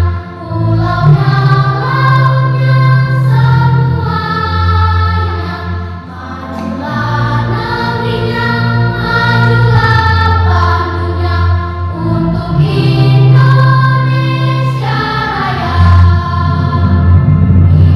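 Children's school choir singing in sustained, held phrases. There is a brief breath between phrases about six seconds in.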